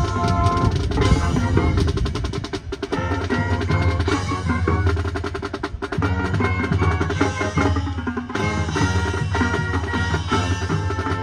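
High school marching band playing: horns hold pitched chords over a drumline's snare and bass drums, with fast drum rolls in the middle.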